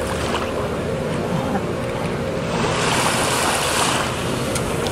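Water lapping and sloshing around kayaks on open water, with a louder stretch of splashing of about a second and a half past the middle.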